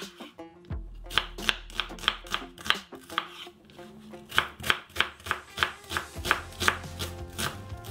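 Kitchen knife dicing an onion on a cutting board: a steady run of sharp chopping strokes, about three a second.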